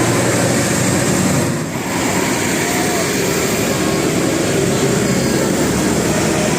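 Bus engine running under steady, loud road and traffic noise, dipping briefly about two seconds in.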